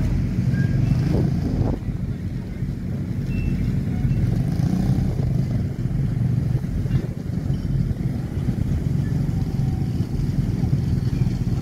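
An engine running steadily at a low, even pitch.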